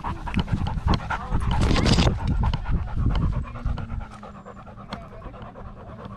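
Dog panting rapidly right at the microphone of a camera strapped to the dog itself. Louder through the first three seconds, then quieter.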